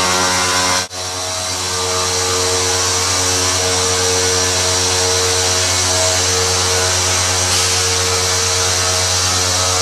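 CNC stone-cutting machine running a spinning diamond finger bit through a 2 cm stone countertop slab: a steady grinding whine with several held tones over a hiss. The sound drops out briefly about a second in, then carries on unchanged.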